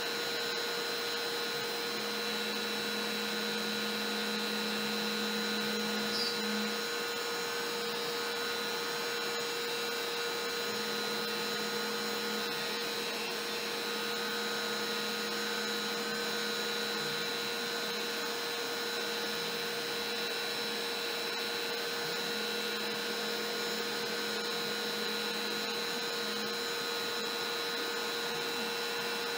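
Trim router on a LowRider v3 CNC running at its lowest speed dial setting, cutting MDF with a single-flute upcut bit, with the dust-collection vacuum running on the hose. A steady whine with a higher whistle over it, and a lower hum that drops in and out as the machine moves.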